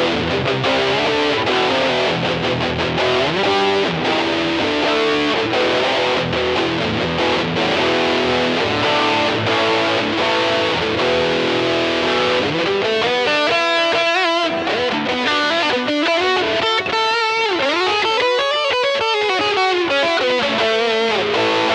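Electric guitar played through a Zoom G1XN multi-effects pedal on a distorted preset: strummed chords and riffs, then, about halfway through, single notes that bend up and down in pitch.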